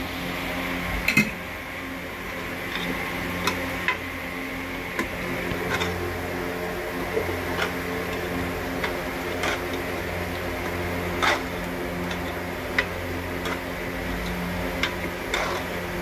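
A metal spatula stirring chicken curry in an aluminium pot, knocking and scraping against the pot in irregular clinks over a steady low hum.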